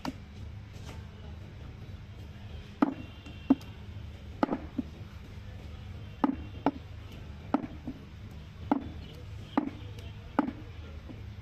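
Large curved butcher's knife chopping goat leg meat on a wooden log chopping block: about ten sharp chops at uneven intervals, roughly one a second, beginning about three seconds in.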